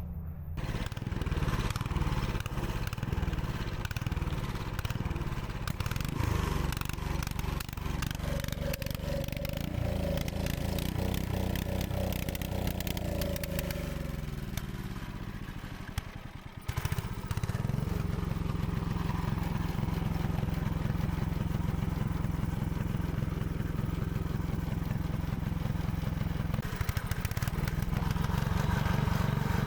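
Engine running, its pitch falling over several seconds until it nearly dies about halfway through, then picking up again and running steadily.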